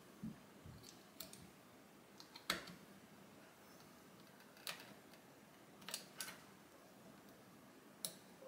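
Faint, scattered small clicks and taps of hands handling plastic parts: a USB cable plugged into a robot's controller board and its wire connectors pressed. About seven clicks, the sharpest about two and a half seconds in.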